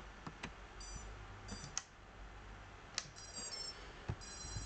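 Faint high electronic beeps in short groups, with a few soft clicks between them over a low steady hum.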